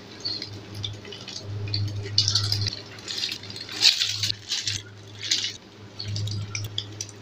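Egg-coated shami kababs frying in shallow hot oil in a nonstick pan. The oil sizzles and spits in short bursts as each patty is laid in, over a low steady hum.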